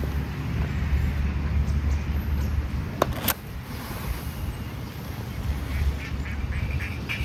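Ducks quacking in a short run of calls near the end, over a steady low wind rumble on the microphone, with two sharp clicks about three seconds in.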